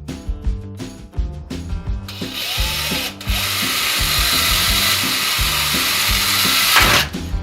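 A power tool running steadily for about five seconds, with a brief stop about a second after it starts, over background music with a steady beat.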